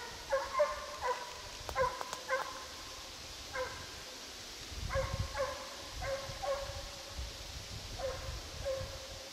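Russian hound giving tongue while running a scent trail: about a dozen short, clear bays in bunches, with a pause of a second or so in the middle.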